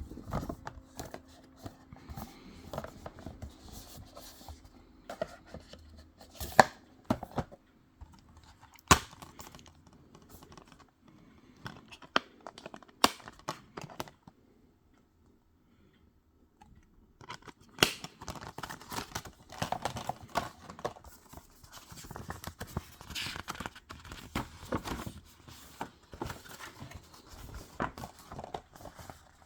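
Packaging being torn and crinkled by hand, with scattered sharp clicks and a few seconds' pause partway through.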